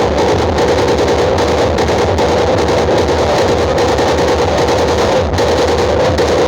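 Loud music with drums played through large outdoor-cinema speaker stacks, a dense sound at a constant level.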